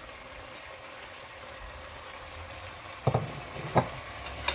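Mutton, tomato and yogurt masala sizzling gently in a pressure cooker, a steady soft hiss, with two knocks a little under a second apart about three seconds in and a smaller click near the end.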